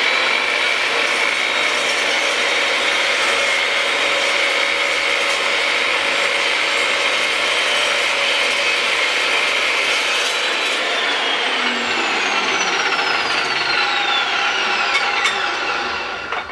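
Makita LC1230 cold cut metal chop saw running with a steady high whine as its blade cuts through an aluminum bar. About ten seconds in, the motor is released and winds down, its pitch falling until it stops near the end.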